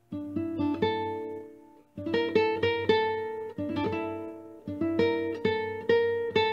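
Background music: an acoustic guitar plucking short phrases of notes that ring out and fade, with brief pauses between phrases.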